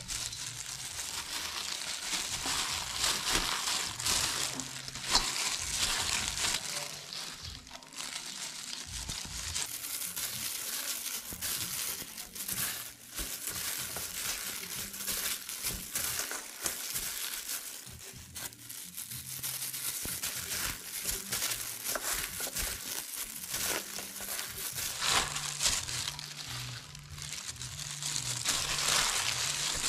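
A plastic-gloved hand kneading and squeezing salted, blanched mustard greens in a stainless steel colander: continuous crinkling of the glove and wet crushing of the leaves, the salt being worked in for pickling.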